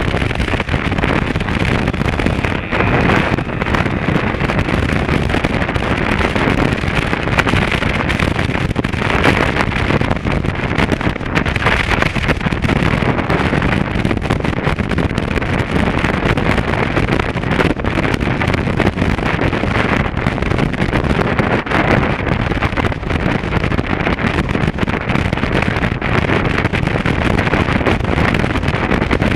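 Steady wind rush buffeting the microphone, with the road and engine noise of a motorcycle riding along at speed underneath.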